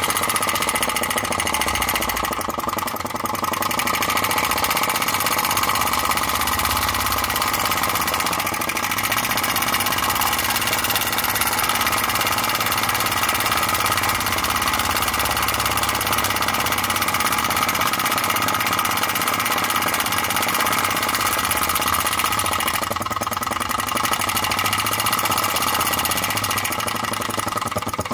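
Enjomor flame-licker (vacuum) engine running steadily: its steel piston in a brass cylinder draws in the burner flame on each stroke, making a fast, even mechanical clatter.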